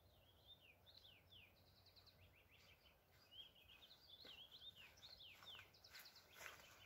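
Faint songbird song: a quick run of short, sliding chirps that keeps going over a quiet forest background. A few soft footsteps come near the end as someone walks up.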